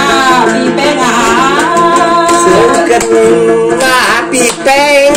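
A woman singing a Thai folk song into a microphone in a sliding, ornamented melody, accompanied by a plucked tính tẩu gourd lute. Her voice breaks off briefly about four seconds in, then resumes.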